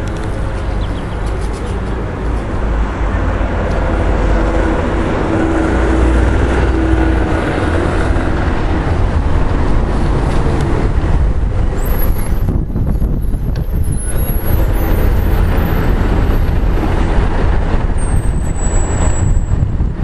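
Mercedes-Benz O 405 city buses running: an articulated O 405 GN pulls past close by with a heavy engine rumble, then a standard O 405 N² comes up. A thin high squeal, falling in pitch, comes shortly before the end.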